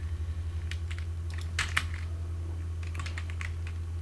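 Computer keyboard typing: irregular clusters of key clicks, over a steady low electrical hum.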